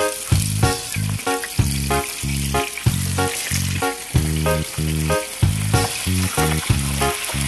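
Background music with a steady beat and bass line, over a constant crackling sizzle of hot oil frying in a pan.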